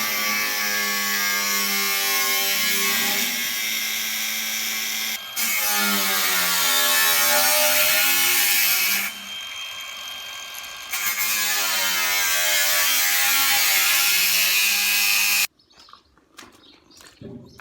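A handheld electric power tool running hard in long stretches. Its motor pitch dips and recovers as it bears into the work, with a short break and a quieter spell. It stops abruptly near the end, leaving faint birdsong.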